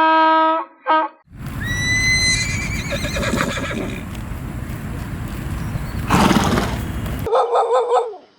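Horse whinnying: a high call that rises, then holds and quavers, over a loud rough breathy noise, with a loud noisy blast near the end. Shorter animal calls come just before and after it.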